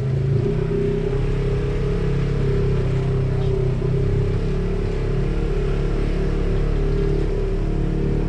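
Polaris RZR side-by-side's engine running at steady low revs, a constant drone while the machine crawls over rocky trail.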